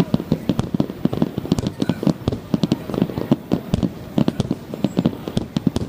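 Aerial fireworks bursting in quick succession during a fireworks show's finale barrage: many sharp bangs, several a second, overlapping.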